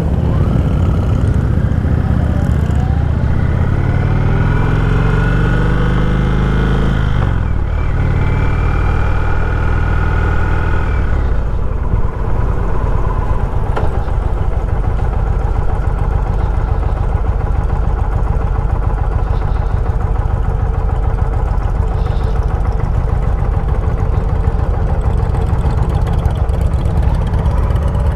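Motorcycle engine pulling up through a gear, rising in pitch for about seven seconds. It drops at a gear change, climbs again briefly, then settles into a steady cruise.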